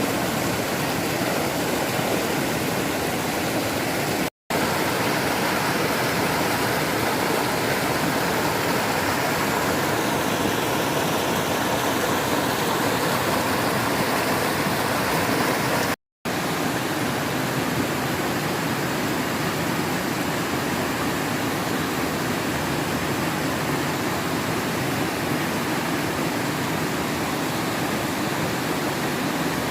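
Steady rush of water in a mountain valley stream, cut off for an instant twice.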